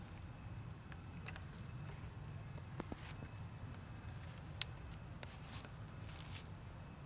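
Quiet outdoor background: a steady low rumble and a thin steady high tone, with a few scattered soft clicks and rustles and one sharper click about four and a half seconds in.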